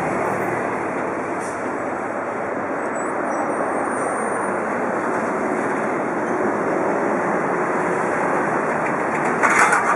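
Airbus A300-600R airliner on final approach, its jet engines giving a steady roar. A brief, louder burst of noise comes near the end.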